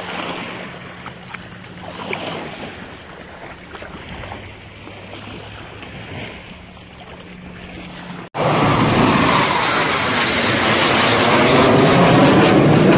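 Shallow water sloshing and splashing around a wading dog, with wind and a faint steady low hum. About eight seconds in it cuts abruptly to the loud roar of jet aircraft flying overhead, growing louder toward the end.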